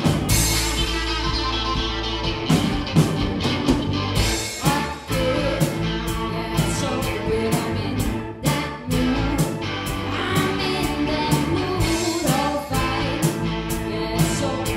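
A live blues-rooted band song: drum kit, bass and electric guitar playing, with a woman singing. A cymbal crash comes right at the start.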